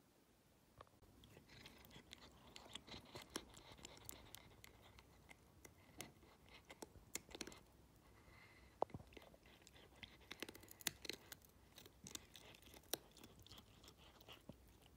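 A cat chewing and crunching its food: faint, crisp clicks in quick, irregular succession, starting about a second in.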